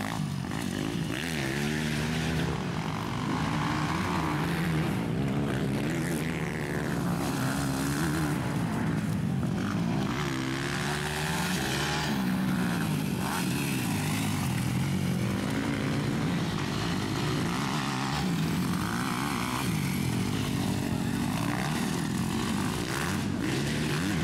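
Several MX2 motocross bikes racing, their engines revving up and dropping back again and again as the riders accelerate, shift and ease off, with more than one bike heard at once.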